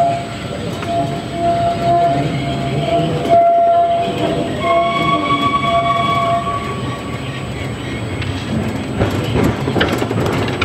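Narrow-gauge railway locomotive running, sounding a long whistle note through the first two thirds, with a second, higher note joining about halfway. A run of sharp clicks comes near the end.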